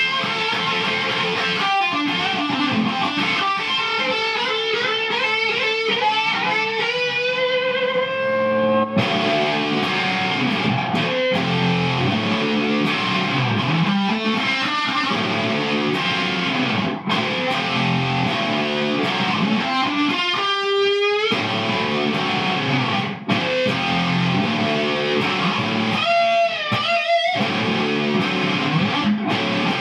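Electric guitar played through a hand-built vacuum tube guitar amplifier: a lead line of held notes with wide vibrato, then a busier riffing passage, with notes bent upward in pitch near 20 s and again near 26 s.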